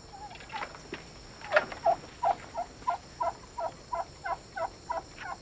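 A chicken clucking: a few scattered clucks, then a steady run of about ten evenly spaced clucks, roughly three a second, from about two seconds in.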